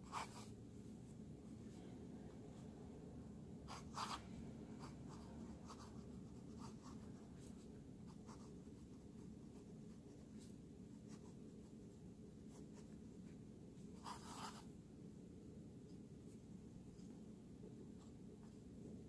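Fountain pen nib scratching faintly across lined paper as someone writes cursive. There are a few louder scratchy strokes: one at the very start, one about four seconds in and one about fourteen seconds in.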